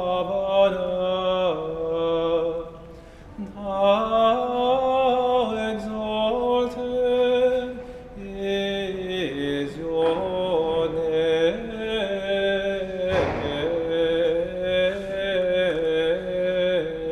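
Slow, sustained church music for communion: held chords moving in steps, with short breaks about three and eight seconds in.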